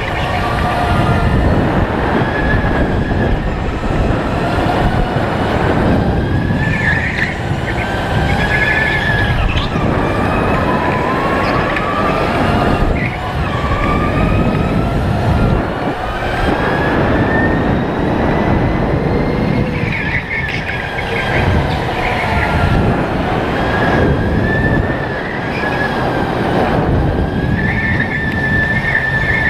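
Sodi RTX electric kart's motor whining, its pitch gliding up and down as the kart speeds up and slows through the corners, over constant road noise from the tyres and chassis. Short tyre squeals come in several corners.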